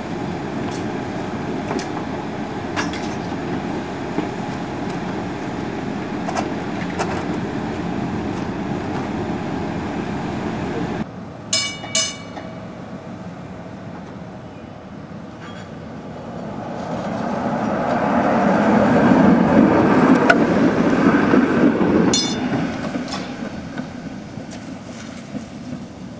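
Muni PCC streetcar 1159: a steady running noise, then after a break two short ringing strokes, and the car rolling along the rails, growing loud as it passes and fading as it moves away.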